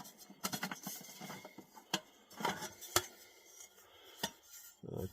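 Metal camp pots and pans being handled and pulled apart: a series of separate clinks and knocks with some rustling in between.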